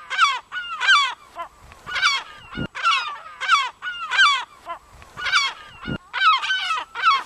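Heuglin's gull (Siberian gull, a race of the lesser black-backed gull) calling: a run of repeated honking calls, about two a second, many bending in pitch. Two brief low thumps come among them.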